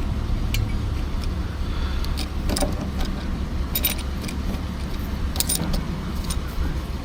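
Loose metal jack tools clinking and jangling as they are handled, a handful of short, separate clinks, over a steady low rumble.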